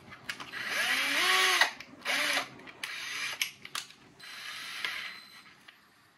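Cordless drill run in several short bursts while its keyless chuck is held by hand, loosening and tightening the chuck to change to a step bit. In the first two bursts the motor pitch rises and falls.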